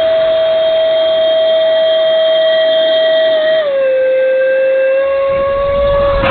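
Electric ducted fan of a Dynam Meteor RC sport jet whining at a steady pitch; the pitch dips a little over halfway through, then holds.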